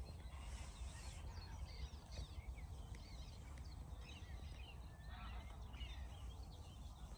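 Birds chirping and calling, many short calls scattered throughout, over a steady low rumble.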